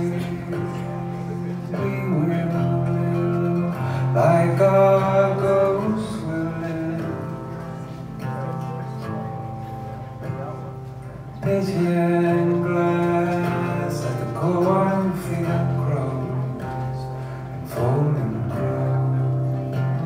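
Live solo performance of a slow song: a man singing long held notes over acoustic guitar, heard from among the audience.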